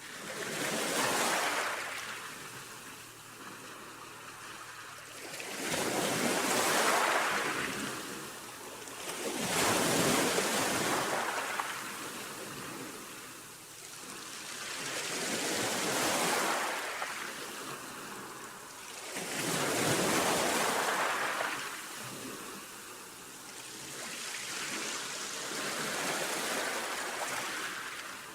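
Sea waves breaking and washing in, each one swelling to a hiss and fading away, about every four to six seconds.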